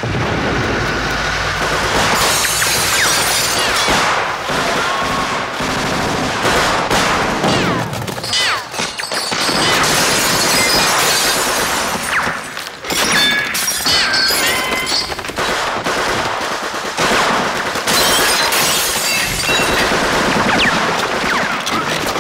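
Battle sound effects from a war film: sustained automatic and rifle gunfire mixed with sharp impacts and shattering, dense and loud throughout with a few short lulls.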